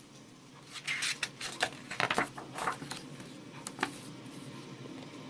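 Paper pages of a picture book being turned and smoothed flat by hand: a run of quick rustles and rubs over about two seconds, followed by two short clicks.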